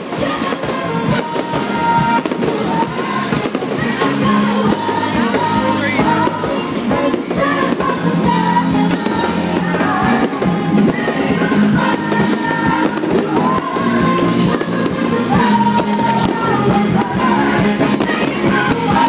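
Amplified live band playing loud rock-style music with a singer, with fireworks popping and banging along with it.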